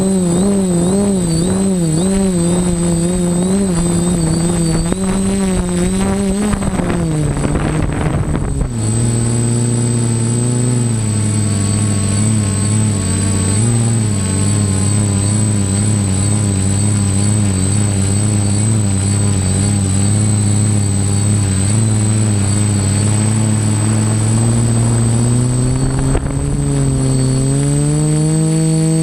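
TBS Discovery quadcopter's electric motors and propellers buzzing steadily, heard from the onboard GoPro. The pitch wavers with throttle, drops lower about nine seconds in, and climbs again near the end. A constant thin high whine runs underneath.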